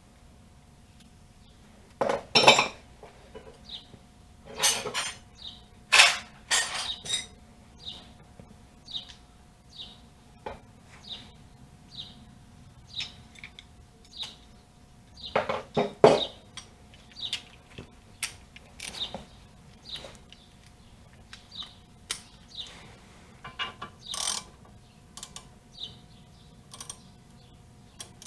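Steel hand tools and hardware clinking and clanking against each other and the hub in a handful of sharp knocks, as a long bolt and lug nuts are set up to force a rusted brake disc off. A faint short chirp repeats about once a second under a low steady hum.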